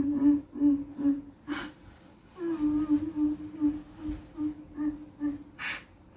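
A woman's sobbing: short whimpering sobs repeated on one steady pitch, about two or three a second, in two runs with a pause between, and two sharp sniffing breaths, one after the first run and one near the end.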